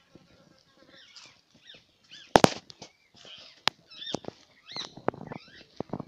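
Parrots calling: a busy run of short calls that bend up or down in pitch, several in quick succession. Several loud, sharp clicks cut through, the loudest a close pair about two and a half seconds in.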